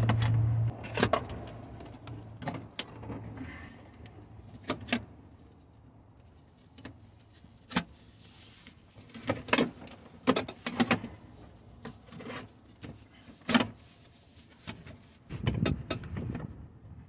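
Scattered sharp clicks and knocks of metal parts being handled and set in place in the battery compartment, after a brief low hum in the first second.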